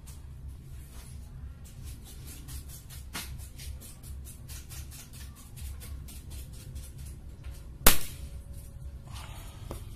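A single suppressed shot from a Canon 747 pump-pneumatic air rifle, charged with one pump, about eight seconds in: one sharp crack with a short tail.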